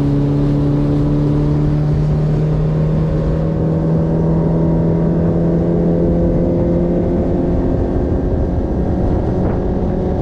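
A boat's outboard motor running steadily under way, with water and wind noise.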